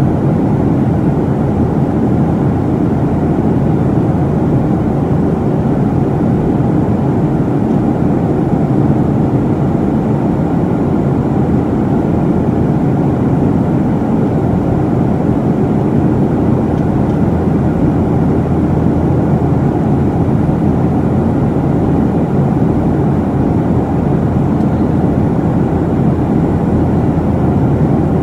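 Steady, unbroken cabin noise of a Boeing 737 jet airliner in flight: engine and rushing air heard through the fuselage by a window seat, a low, even drone with no changes.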